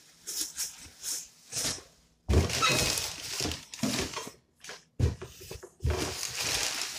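Plastic wrapping crinkling and cardboard rubbing as a large stainless steel steamer pot is pulled out of its box, with a few dull knocks of the pot against the box, the loudest about two seconds in and around five and six seconds.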